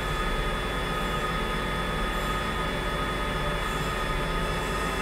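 CNC mill running as it cuts away part of a graphics card's circuit board: a steady machine whine made of several even tones, with no break or change.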